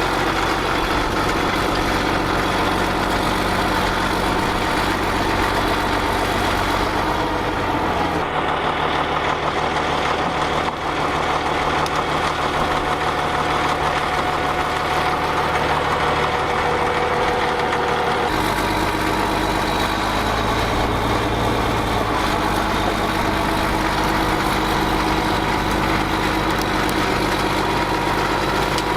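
Caterpillar D6D dozer's six-cylinder diesel engine running steadily, its note changing abruptly about eight seconds in and again around eighteen seconds in.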